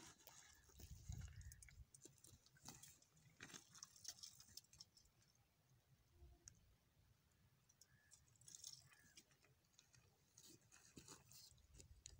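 Near silence with faint, scattered clicks and crackles.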